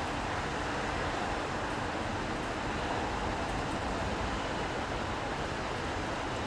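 Steady city street ambience in the rain: traffic on wet roads blending with falling rain into a constant hiss.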